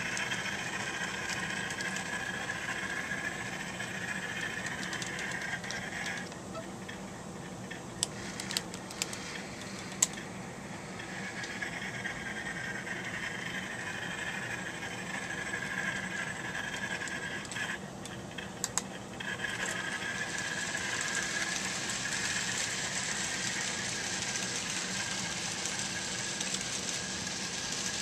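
Model trains running on a layout: a steady whir of small locomotive motors and wheels on the track, with a few sharp clicks about eight to ten seconds in and again near nineteen seconds.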